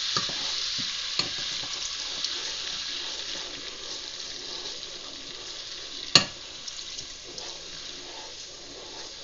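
Butter and milk sizzling in a saucepan on the stove while a wooden spoon stirs, with a few light knocks of the spoon against the pot and one sharp knock about six seconds in. The sizzle slowly grows quieter.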